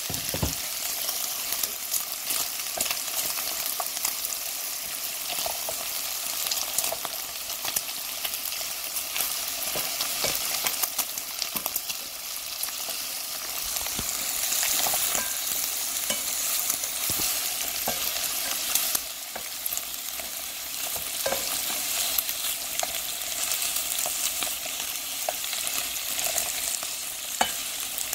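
Pork belly and pork neck pieces frying with garlic cloves in a nonstick pan, sizzling steadily with many small spits and crackles of fat. Now and then tongs knock and scrape on the pan as the meat is turned.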